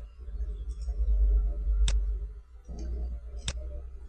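Two sharp computer mouse clicks about a second and a half apart, over a steady low electrical hum.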